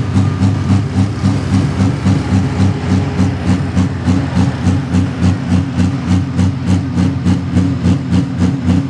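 Pro Stock pulling tractor's diesel engine idling with a loud, lumpy, even beat of about three pulses a second.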